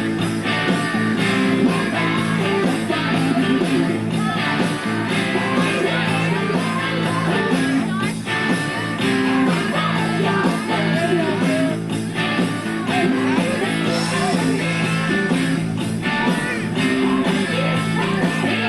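Music: a rock song with singing and guitar over a steady beat.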